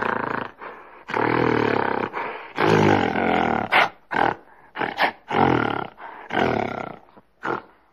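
Gorilla calls: a string of about nine loud, pitched vocalisations, the longest about a second and the rest short, with brief gaps between them.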